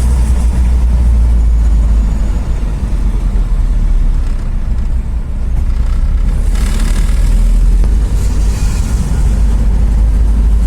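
Steady low rumble of a van driving along a city road. Brief swells of rushing noise come about two-thirds of the way through.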